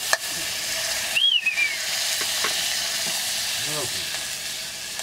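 Food sizzling in a metal pot held over an open wood fire, a steady hiss. A short high chirp sounds about a second in.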